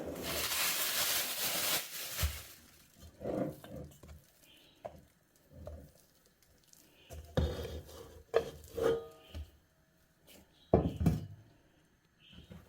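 Kitchen prep sounds: a rustling hiss for the first two seconds, then scattered knocks and clinks of dishes and utensils, a few with a short ring.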